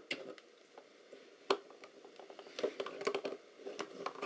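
One sharp click about a second and a half in, then scattered light clicks and scrapes of small metal hand tools on a film camera's lens mount as a tight part is worked at. Pliers grip it near the end.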